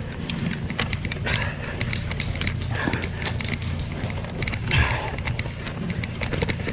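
Airsoft guns firing in scattered short bursts: sharp snapping clicks that come in clusters, over the low rumble of movement and wind on the microphone.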